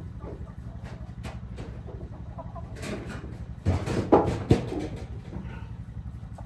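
Chickens clucking, with a short burst of louder knocks and rustling about four seconds in.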